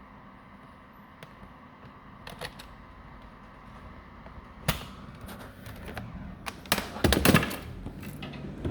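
Computer keyboard keys being pressed: a few scattered clicks at first, then louder, denser clattering from about halfway, over a steady background hum.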